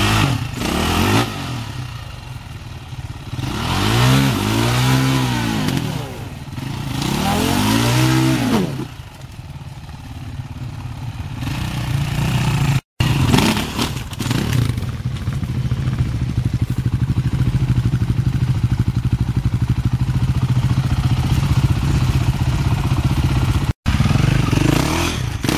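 Enduro dirt bike engines revving hard in mud. The pitch swells up and falls back twice, then the engine runs at a steadier high pitch as a bike pushes on. The sound breaks off abruptly twice where the footage cuts.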